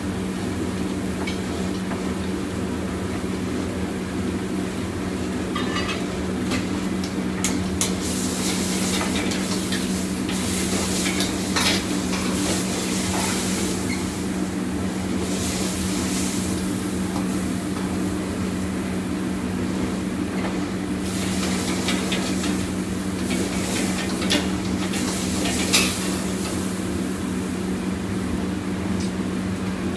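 Stir-frying in a restaurant wok: food sizzling in bursts as it is tossed and stirred with a metal ladle and spatula, with a few sharp clinks of metal on the wok. A steady low hum of kitchen equipment runs underneath.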